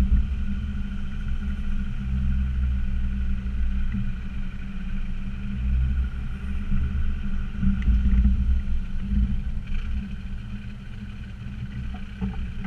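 Land Rover Discovery Td5's five-cylinder turbo-diesel engine running at low revs, a steady low rumble that swells and eases, with a few faint knocks later on.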